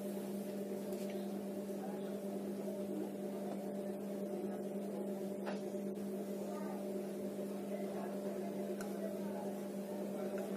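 A steady low electrical hum, with a few faint taps.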